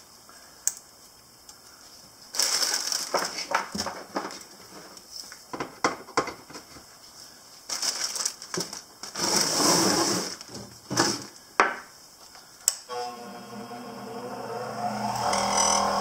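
A plastic bag crinkling and rustling as it is handled, then a click about thirteen seconds in as a Delta bench grinder with a buffing wheel is switched on, its motor whine rising in pitch as it spins up to speed.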